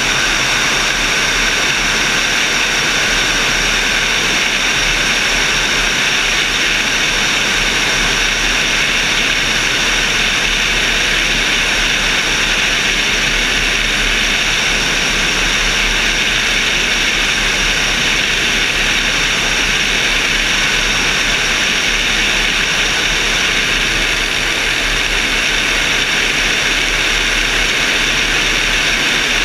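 Altus motorglider in flight: a steady, loud rush of air over a wing-mounted camera, with a few steady high tones running through it and no change in pitch or level.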